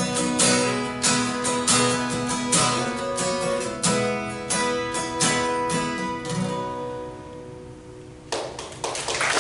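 Acoustic guitar playing the closing bars of a slow song: a run of strummed chords, then a last chord left ringing and fading, followed by a few more notes. Applause begins right at the end.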